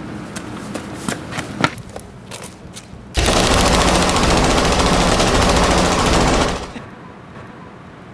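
A sustained burst of automatic gunfire, a rapid machine-gun sound effect lasting about three and a half seconds, starting about three seconds in. A few scattered light clicks come before it.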